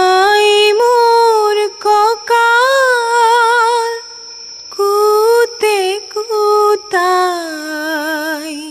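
A high female voice singing alone in several slow, drawn-out phrases with vibrato, the last phrase held with a wide vibrato and fading out. Steady cricket chirring continues behind the voice.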